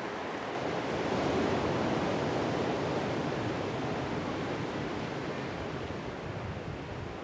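Rushing sound of sea surf, swelling about a second in and then slowly easing off.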